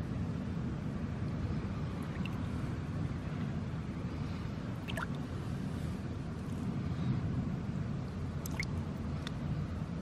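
Shallow water sloshing around a handled eel, with a few small drips and splashes, two close together near the end, over a steady low rumble.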